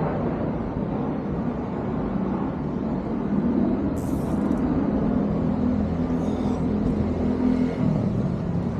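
Steady low engine hum, with a brief sharp rustle or click about four seconds in.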